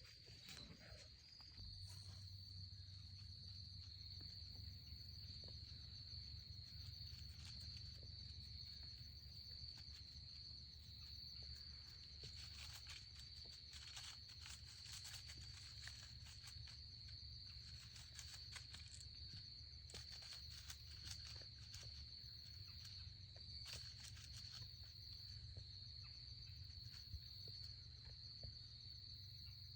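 Insects trilling in a steady, unbroken high-pitched buzz, with a low hum underneath and a few faint clicks.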